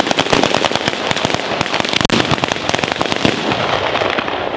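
Ground-level firecracker battery (batteria alla bolognese) firing: a rapid, dense string of sharp cracks that thins out after about three and a half seconds as it burns down.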